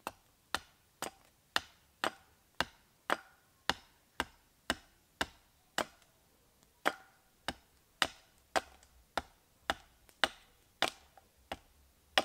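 Hatchet striking down along a split length of wood held upright on a chopping block, hewing it into shape: a steady run of sharp knocks about two a second, with one short pause a little past halfway.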